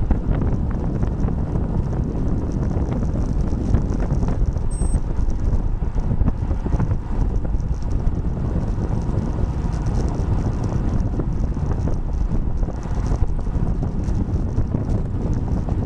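Steady wind rush buffeting a bike-mounted camera's microphone as a road bike rides at about 30 mph.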